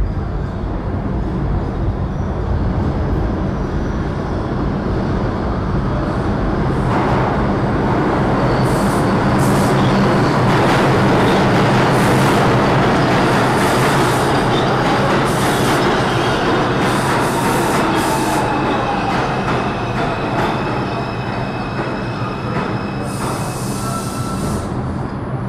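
New York City subway train running into the station: a rumble that builds to its loudest about halfway, with metallic wheel squeals, then a falling whine as it slows and a short hiss near the end.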